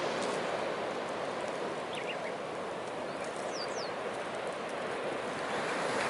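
Driftwood bonfire burning, a steady rush with a few faint crackles, and a bird chirping briefly twice.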